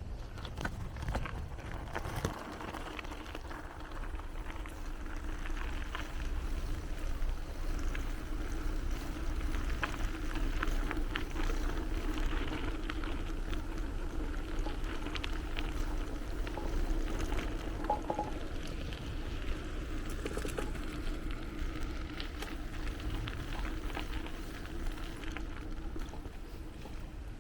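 Bicycle riding along a path: a steady rumble of tyres and wind with a constant low hum, and scattered clicks and rattles from the bike.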